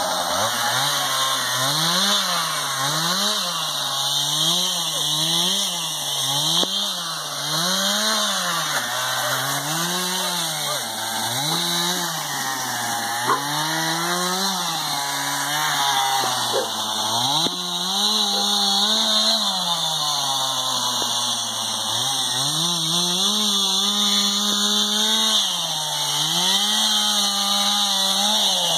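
Two-stroke chainsaw engine revved up and down over and over, about once a second. In the second half the revs are held high for a few seconds at a time before dropping back.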